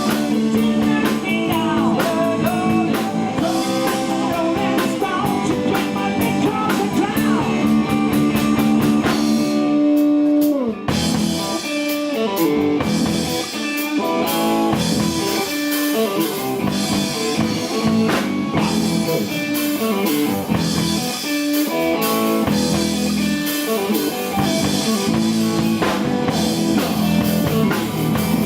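Live blues-rock band playing, guitar over a drum kit. About ten seconds in, a long held note slides down in pitch, and the band carries on in a steady rhythm.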